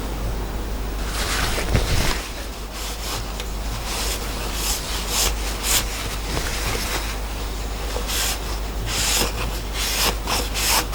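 Irregular rasping, rubbing strokes of hand work on a freshly milled steel part at the vise, deburring it and clearing away shavings, over a low steady hum.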